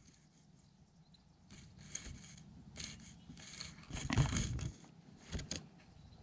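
Rustling and scraping of hands pulling wet pond weed off a fishing line close to the microphone: a string of short, irregular bursts, loudest about four seconds in.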